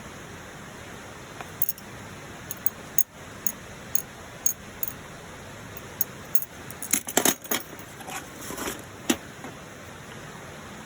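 Light metallic clinks and taps, irregular, with a quick cluster about seven seconds in, over a steady background hiss.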